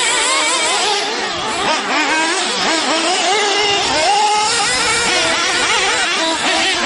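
Several radio-controlled off-road cars racing, their small engines whining in overlapping high pitches that rise and fall constantly with the throttle.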